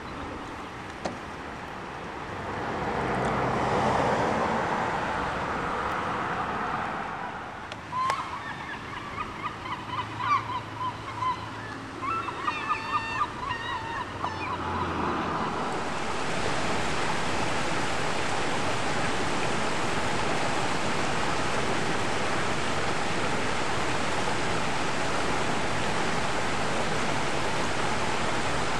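Steady rushing of water, with a bird calling in a quick run of short, repeated calls for about seven seconds in the first half.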